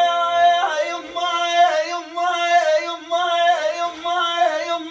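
A man singing a long, ornamented sweihli folk line: a held note breaks off about half a second in, then the voice wavers and bends through sustained notes.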